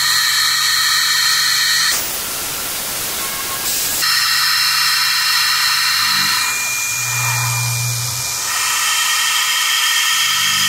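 CNC PM-30 milling machine's spindle running while a small end mill cuts aluminum, with a spray nozzle hissing at the cutter. The sound is a whine of several high tones over a steady hiss, and the tones shift in pitch every couple of seconds. About two seconds in, the whine drops out, leaving only the hiss for about two seconds.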